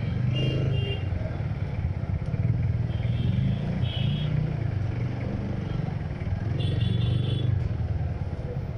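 Motorcycle engine running as the bike rolls slowly, heard from the rider's seat. Brief high-pitched tones cut in three times over it.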